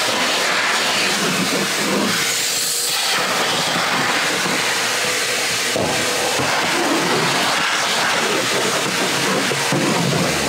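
Vacuum cleaner running steadily, its hose nozzle sucking air and dirt off the plastic floor of a kayak hull with a constant loud hiss.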